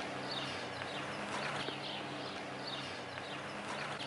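Outdoor ambience: small birds chirping again and again over a steady low hum.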